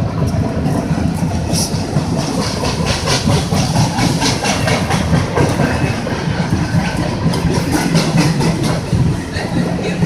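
Empty flatcars of a freight train rolling past, their wheels clicking rapidly over rail joints above a steady low rumble.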